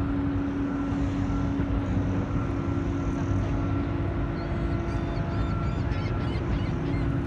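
Steady machinery drone with a constant low hum from the moored bulk cargo ship and its quayside unloading machinery. A fainter, higher tone comes and goes over it.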